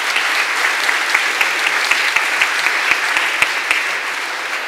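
Audience applauding: many hands clapping together, easing off slightly near the end.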